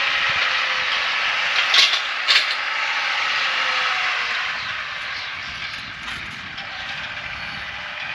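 Farm machinery running steadily, with two sharp clicks about two seconds in.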